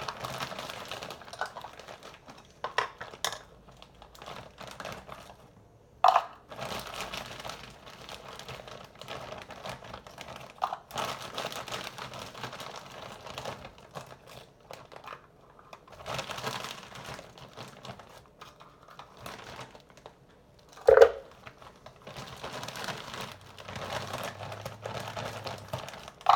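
Plastic bag crinkling and rustling on and off as mango chunks are handled and measured out, with scattered clicks and a few sharp knocks, the loudest about three quarters of the way through.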